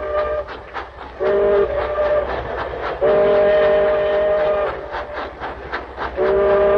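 A train whistle sounds a chord of several steady tones in three blasts: a short one about a second in, a longer one of nearly two seconds about three seconds in, and a third starting near the end. Under it runs the fast rhythmic clatter of a moving train.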